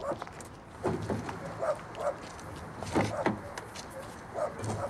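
A car door being opened, with footsteps and a few short sharp clicks and knocks of handling.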